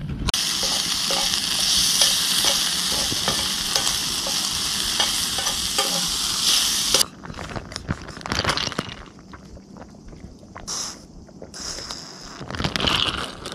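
Frying pan sizzling hard over an open campfire, the pan running very hot. The sizzle cuts off suddenly about seven seconds in, leaving quieter scattered clicks and rustling.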